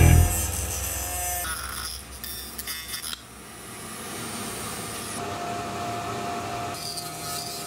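Small high-speed rotary tool with a thin cutting disc, grinding into a coconut shell. In the second half a steady high whine holds.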